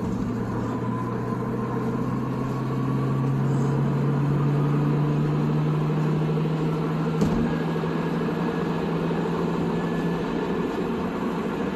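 Car engine droning at highway speed over steady road and tyre rumble, heard from inside the cabin. The engine note rises slowly over the first few seconds as the car picks up speed, then holds steady. One short knock about seven seconds in.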